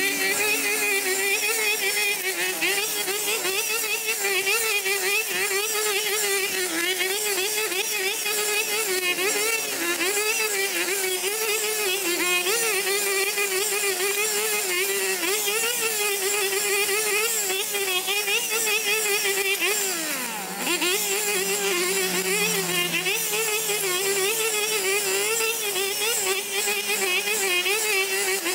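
Petrol-engined grass cutter running hard and steadily, its engine pitch wavering up and down. About twenty seconds in, the engine drops briefly toward idle, then revs back up.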